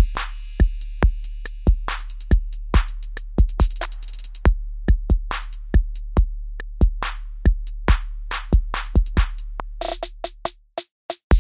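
Electronic background music: a steady drum-machine beat over a held bass note, with the bass cutting out briefly near the end.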